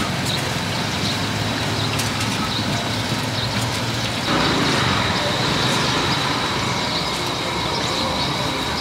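Large wok of deep-frying oil starting to sizzle and bubble about four seconds in, over a steady rumble of traffic and a constant high tone.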